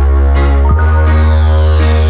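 Electronic background music with heavy synthesizer bass and a falling synth sweep about a second in.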